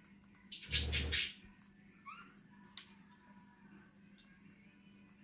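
Kakarikis foraging in a pan of soil and grass. A brief loud rustling burst with a low thump comes about a second in, then a short chirp around two seconds and scattered soft clicks of beaks pecking.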